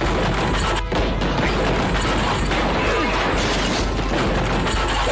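Cartoon sound effects of stone smashing and debris crashing down: a loud, continuous noise with a brief break about a second in, over background music.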